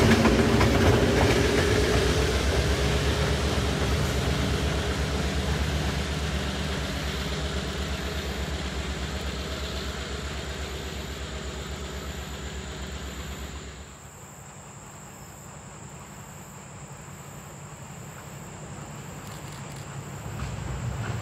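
Diesel locomotive and its train passing and moving away, the engine's low pulsing rumble fading steadily. About fourteen seconds in the sound drops off abruptly to a faint rumble, which grows a little louder again near the end.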